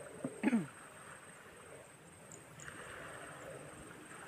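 Insects keeping up a steady, high, thin buzz with short chirps now and then, over faint outdoor noise. About half a second in, a brief downward-sliding sound stands out as the loudest thing.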